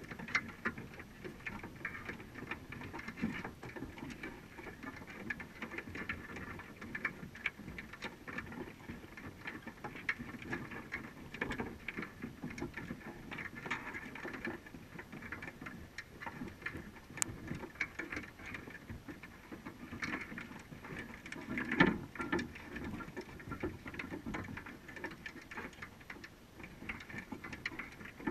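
Dense, irregular clicking and tapping of crabs' legs and shells against the wire mesh and bait box of a crab trap, heard underwater through a camera's waterproof housing, with one louder knock about 22 seconds in.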